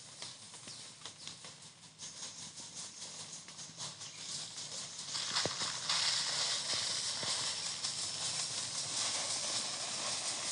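Rice husks pouring from a sack onto a muddy path in a steady hiss, with scattered footsteps. The hiss grows louder about halfway through. The husks are being spread to give grip on the wet, slippery track.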